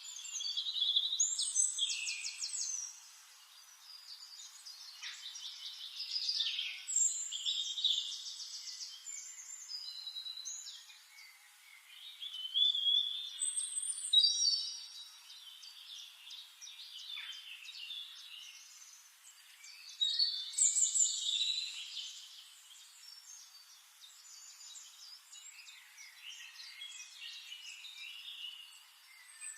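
Forest songbirds singing and calling over one another: fast trills, chirps and whistled phrases. The song comes in louder bouts about a second in, around 6 to 8 seconds, around 12 to 14 seconds and around 20 to 22 seconds.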